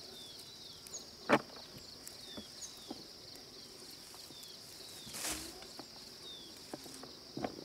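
Peanut plants rustling and snapping as they are pulled and stripped by hand, with sharp snaps about a second and a half in and near the end and a short rustle a little past the middle. Under it a steady high insect drone and a short falling chirp repeating about once a second.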